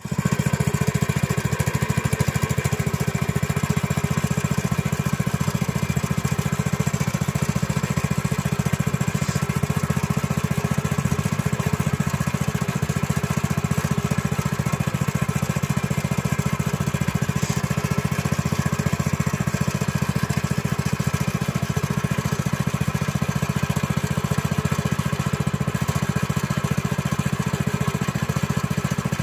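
Small single-cylinder petrol engine running steadily at a constant speed, driving a homemade pipe-bending roller machine through a chain.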